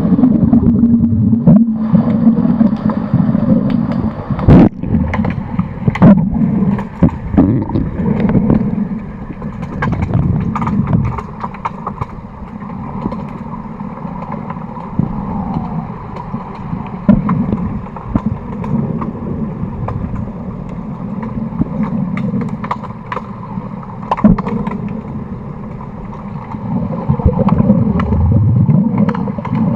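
Underwater sound in a swimming pool during an underwater hockey game: a muffled, shifting rush and gurgle of water around the submerged microphone, with many short sharp clicks and knocks scattered through it.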